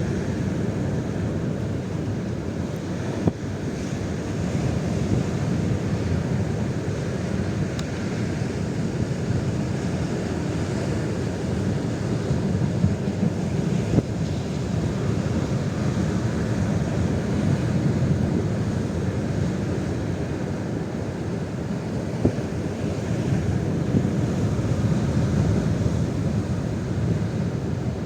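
Strong gusty wind buffeting the microphone: a steady low rumble that swells and eases, with a few faint clicks.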